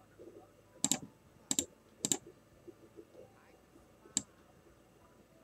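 A few separate sharp clicks from a computer keyboard and mouse being worked, each a quick double click, spread out with pauses between them.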